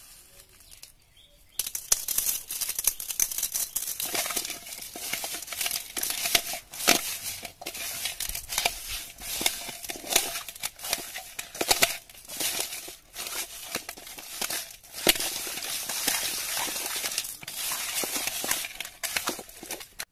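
Hands rubbing and turning pieces of raw fish in a metal bowl. From about a second and a half in there is a continuous irregular rustling and squishing, with sharp clicks as the pieces knock and scrape against the bowl.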